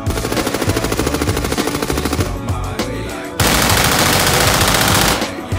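Fully automatic rifle fire on a magazine dump: rapid shots for the first couple of seconds, then a long, loud continuous burst about halfway through that cuts off shortly before the end.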